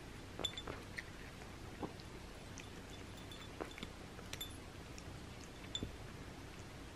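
A cat eating dry kibble from a small ceramic dish: faint, irregular clicks and clinks of the kibble and teeth against the dish, several scattered across a few seconds.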